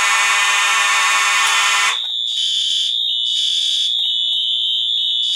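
Fire alarm horns and sounders on a fire alarm panel, sounding loudly together. About two seconds in, a harsh buzzing sound drops out, leaving a steady high-pitched tone with another sounder pulsing on and off over it.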